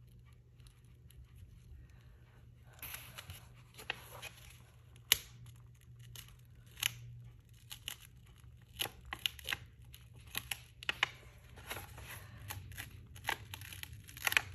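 Direct transfer film being slowly cold-peeled off a canvas tote: a faint rustle, then irregular crackles and snaps as the film pulls away. The film is tough to peel, which she wonders may be from too much glue.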